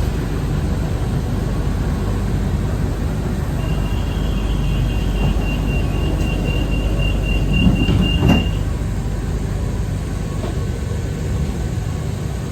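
Pink Line monorail train running, a steady rumble of its wheels on the guideway. A thin high squeal comes in about four seconds in and lasts some four seconds, ending with a couple of knocks.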